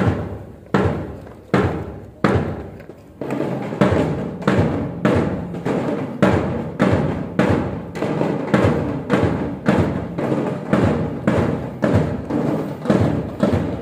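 Drums beating in a steady rhythm: a few slow, spaced strokes, then from about three seconds in a regular beat of nearly two strokes a second.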